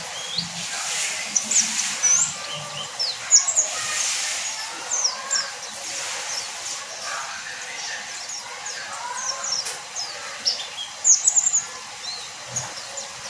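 Pleci (white-eye) giving many short, high chirps and quick sliding notes, scattered irregularly, with louder clusters about three seconds in and near the end, over a steady background hiss.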